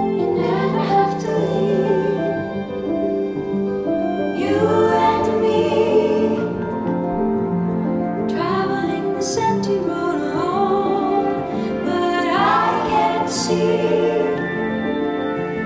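Slow, tender music with sustained, wavering sung notes and no clear words.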